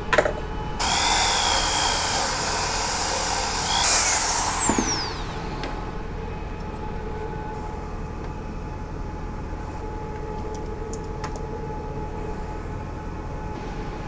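A high-speed power tool runs for about three seconds with a high whine whose pitch wavers slightly, then is released and winds down with a falling whine. A steady low hum continues afterwards.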